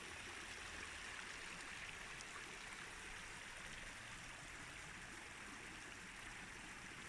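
Small mountain stream running over rocks: a steady, faint rush of flowing water.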